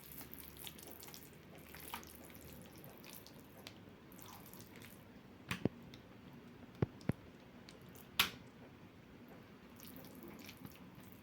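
Quiet kitchen handling sounds: faint water dripping or trickling, with a few sharp clicks and taps, the loudest about eight seconds in.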